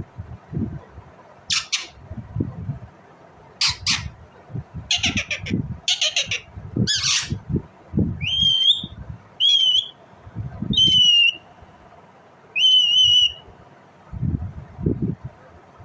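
Indian Ringneck parakeet calling: several harsh squawks, then four shorter, clearer whistled calls. Low bumps run underneath.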